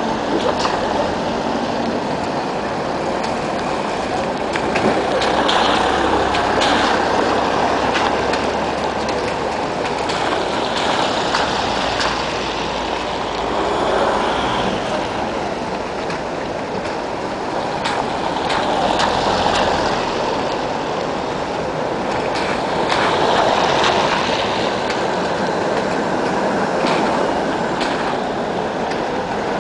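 Cars driving over wet cobblestones and tram rails, the tyre noise swelling and fading several times as vehicles pass, with a few brief light knocks.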